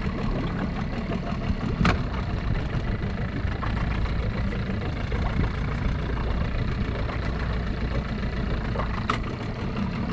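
Boat engine idling steadily with a low hum. Two sharp clicks, about two seconds in and again near the end.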